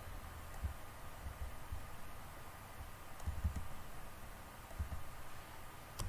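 Quiet room tone with a faint steady hum and scattered soft low thumps, then a single sharp computer mouse click near the end.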